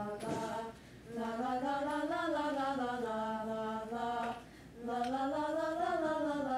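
Girls' voices singing a cappella in long held notes that rise and fall in slow phrases, with short breaks for breath about a second in and again past the middle.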